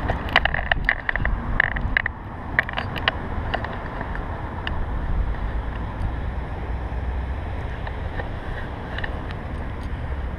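Steady wind and movement rumble on a GoPro strapped to a dog's chest, with a quick cluster of sharp clicks in the first two seconds and scattered ticks after.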